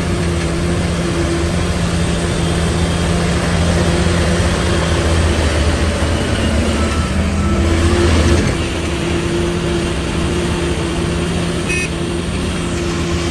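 Heavy diesel engine of construction machinery running steadily under load, louder for the first eight seconds and then easing off, with a brief click near the end.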